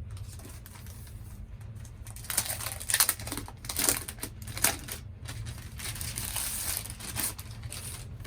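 Laptop packaging crinkling and rustling in uneven bursts as the laptop is unwrapped, with the sharpest crackles from about two to five seconds in.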